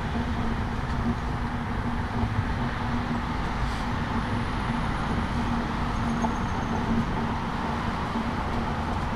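Street traffic noise: a steady rumble of road vehicles with a constant low hum.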